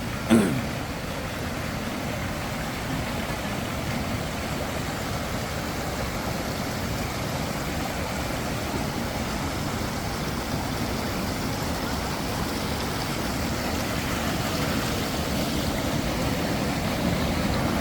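Steady rush of a waterfall's falling water, growing a little louder near the end. A brief loud thump comes just after the start.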